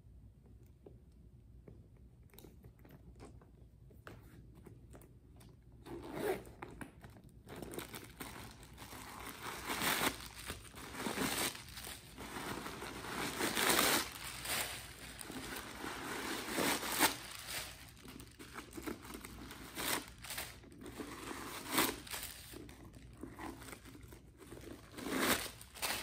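Crumpled paper stuffing crinkling and rustling as it is pulled out of a new handbag, in repeated bursts from about six seconds in; before that only faint handling clicks.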